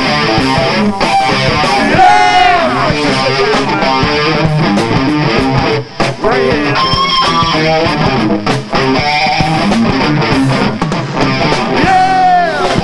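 Live funk band playing an instrumental passage on electric guitars, bass guitar and drums. Long notes bend in pitch about two seconds in and again near the end.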